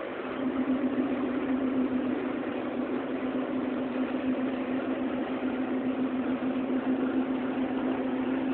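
Diesel engine of a ChME3 shunting locomotive running steadily with a strong droning tone. It gets louder about half a second in and then holds.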